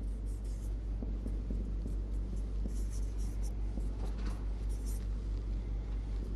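Whiteboard marker squeaking and scratching across the board in a few short groups of strokes, over a steady low electrical hum.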